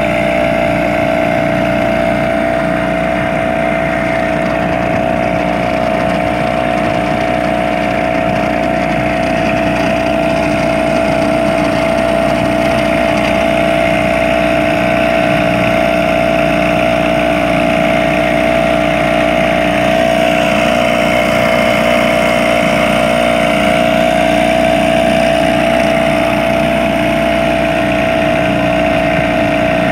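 A small wooden boat's engine running steadily under way at an even cruising speed, with one constant pitch that hardly changes.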